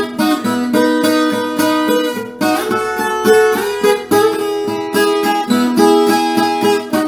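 Background music: acoustic guitar playing with quick repeated plucked notes.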